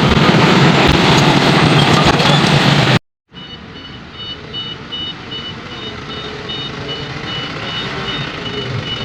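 A loud, rough rush of noise that cuts off abruptly about three seconds in. Then heavy machinery runs at a lower level with a high-pitched warning beep repeating about twice a second: an excavator's travel or reversing alarm.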